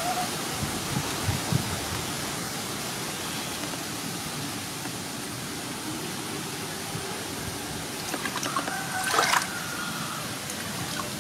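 Steady trickle of shallow water, with a short knock about nine seconds in.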